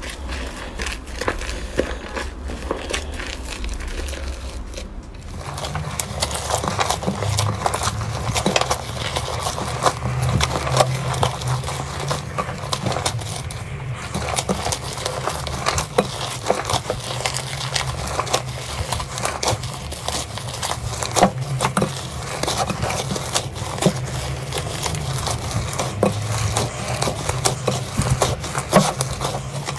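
Slime being squeezed, poked and stretched by hand, giving dense small crackles, clicks and pops. The sound changes about five seconds in, growing busier.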